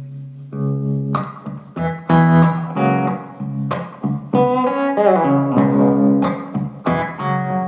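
Background music led by plucked guitar, playing notes in quick phrases over a sustained low bass.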